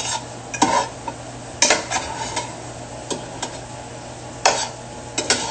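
Food sizzling in a frying pan, with a utensil knocking and scraping against the pan about six times.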